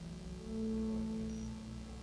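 Electroacoustic music: sustained drone tones that swell about half a second in and then ease off, over a low rumble, with faint short high blips.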